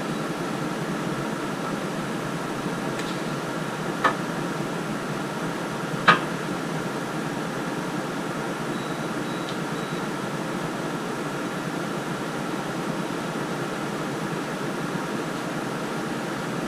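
Steady fan-like hum of background noise, with two short light clicks about four and six seconds in.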